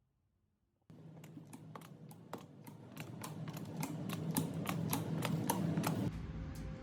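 Rapid, irregular sharp clicks, several a second, over a low steady hum; they start suddenly about a second in after near silence. Music with a low bass comes in near the end.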